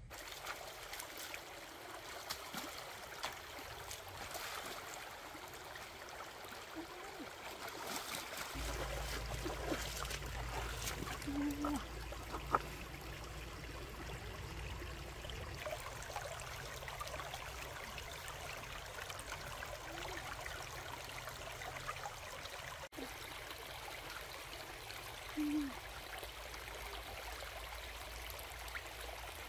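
Shallow stream running and trickling over rocks, a steady watery hiss, with one sharp click about halfway through.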